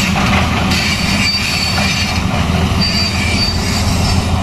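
Tracked excavator working: a steady engine rumble with high metallic squeals, twice.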